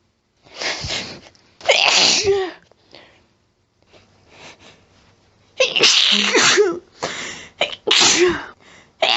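A person's harsh, throaty sneezes in a fit set off by a nasal tickle: a hitching build-up and one loud sneeze about two seconds in, a pause with small sniffs, then several more sneezes in quick succession from about halfway through.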